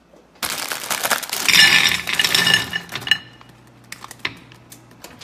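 Plastic candy bag crinkling, then mellowcreme pumpkin candies pouring out of it into a bowl with a clatter. The noise starts suddenly about half a second in and stops about three seconds in, followed by a few faint clicks.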